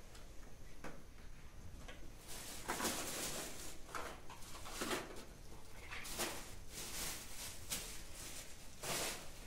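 Plastic bag rustling and crinkling as it is handled and shaken, in a series of bursts starting about two seconds in.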